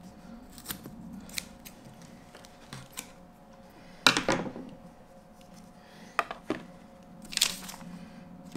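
Scissors cutting through a belt strap with a few small snips, then louder knocks and a clatter about four seconds in and again later as the scissors and belt are handled on a table.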